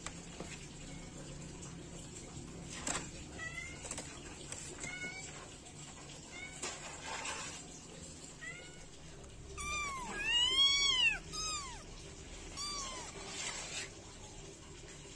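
Young kittens mewing in short, high-pitched calls that rise and fall in pitch. A few softer mews come first, then a louder run of calls about ten seconds in, and a few more near the end.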